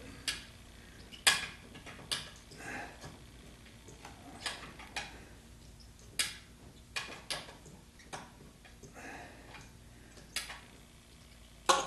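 Sharp, irregularly spaced metal clicks and clinks, about a dozen, from a hand wrench working on the engine's valve cover hardware.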